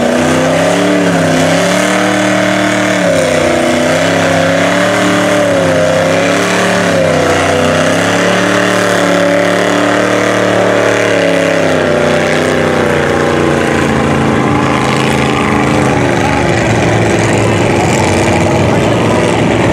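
Supercharged LS V8 (LQ4 with an LSA supercharger) of a tractor-tired mud Jeep revving up and down as it churns through water, the pitch rising and falling every second or two. In the last several seconds the engine note becomes less distinct under a rougher churning noise.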